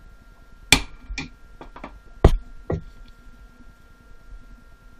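A hammer strikes a hand impact driver to break loose the tight outer cover screws of a Mikuni watercraft carburetor. It gives a few sharp metallic knocks: two loud strikes, about three quarters of a second and two and a quarter seconds in, with lighter taps between and just after.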